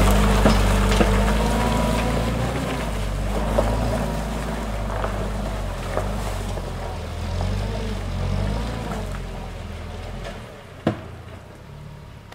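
UAZ Patriot SUV engine running under load as it drives off along a muddy rutted track, fading steadily as it moves away. A single sharp click about eleven seconds in.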